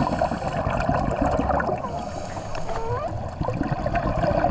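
Underwater gurgling and bubbling heard through a submerged diving camera: a steady muffled wash of water noise with a low rumble, broken by short squeaky pitch glides now and then.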